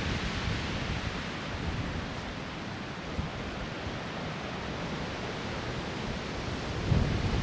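Strong wind blowing: a steady rushing hiss, with a low gust rumbling in near the end.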